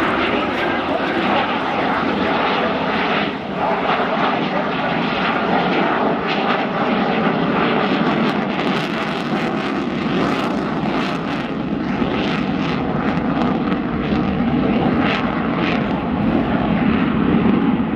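F-16 fighter jet's engine noise as the jet flies overhead, a loud, steady rush.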